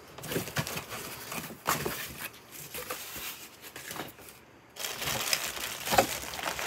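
Hands handling foam packing pieces and cardboard in a shipping box: irregular rustling, scraping and light knocks, with a short pause about four and a half seconds in.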